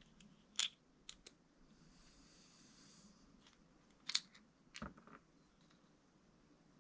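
Small RC car centre-differential parts being handled on the bench: a handful of sharp little clicks and taps, the loudest near the start and about four seconds in.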